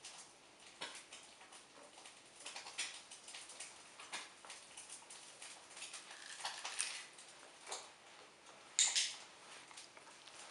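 Faint, irregular patter and ticking of a dog's paws and claws as it walks and turns about close to its handler, with one sharper, louder click near the end.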